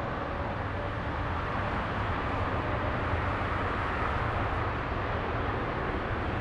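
Boeing 787's GEnx turbofan engines running as the airliner turns onto the runway: a steady rushing jet noise that swells slightly midway.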